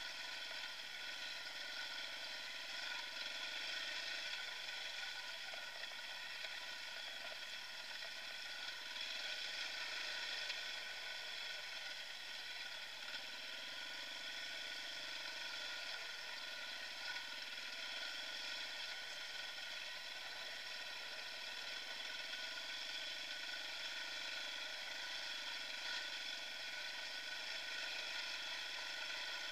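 Dirt bike engine running at a steady pace while riding singletrack, an even drone that hardly changes in pitch.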